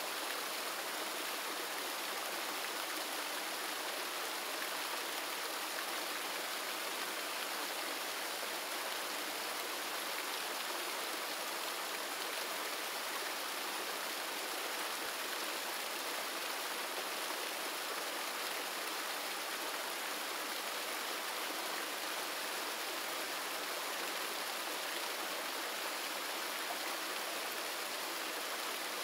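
Water rushing and splashing onto the turning blades of the Panchakki, a Mughal-era horizontal water-mill wheel. It is a steady, unbroken rush.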